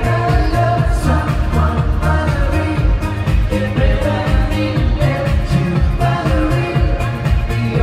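Pop song with a lead vocal over a band and a steady dance beat, as heard in the hall during a stage show, with a singer, keytar and electric guitar on stage.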